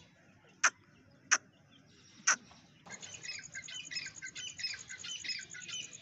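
Gray francolins giving three short, sharp calls about a second apart. About three seconds in, a busier chirping starts abruptly over a fast, even, high ticking.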